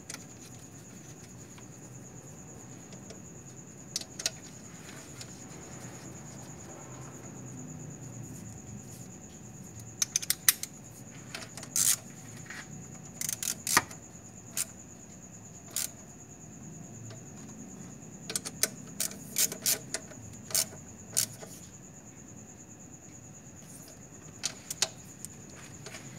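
Scattered metallic clicks and clinks of hand tools and small metal parts being handled during car repair work. A steady faint high-pitched whine runs underneath.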